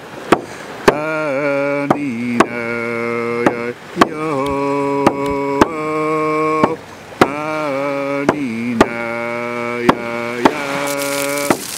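Chant-like singing in a low voice, long held notes each sliding up into pitch, over a steady beat of sharp percussive strikes.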